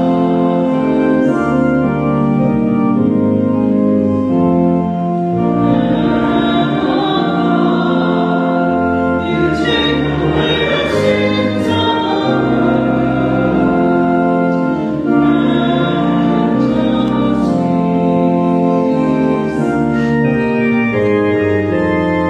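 Church organ playing slow, held chords, with voices singing along as a sung response of the Mass.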